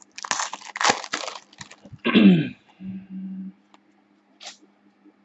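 Plastic wrapper of a basketball trading-card pack crinkling and crackling as it is torn open and pulled off the cards, for about two seconds. Then a brief wordless vocal sound falling in pitch, and near the end only faint ticks of cards being handled.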